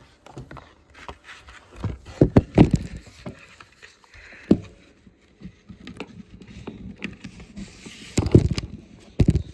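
Handling noise: a run of clicks, knocks and scrapes of objects being moved about, loudest about two seconds in and again near the end.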